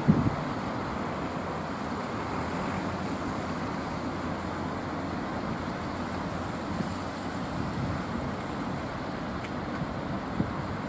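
Steady outdoor hum of distant road traffic, with a short thump right at the start and a smaller one near the end.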